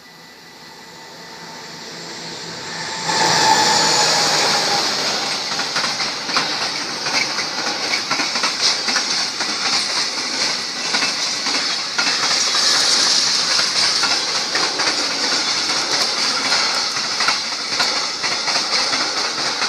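Container freight train approaching, growing louder over the first three seconds, then passing close by with a sudden jump in level. The wagons run past with a steady rush and a continuous clatter of wheels over the rails.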